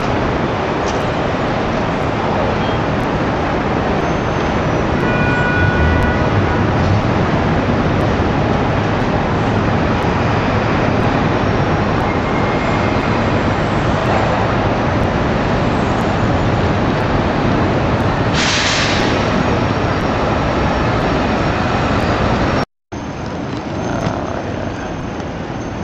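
Steady city street traffic noise, a dense rumble of passing vehicles, with a short hiss about eighteen seconds in. Near the end the sound cuts out for a moment and resumes a little quieter.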